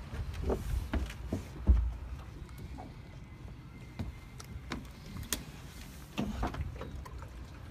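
Scattered light knocks and clicks with low thumps from moving about aboard a moored fibreglass boat, with a heavier thump about two seconds in.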